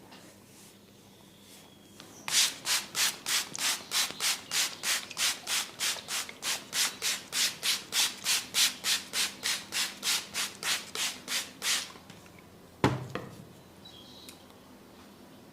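Massage strokes rubbing on hair and skin: a brisk, even scrubbing at about three strokes a second that stops after about ten seconds. A single sharp thump follows about a second later.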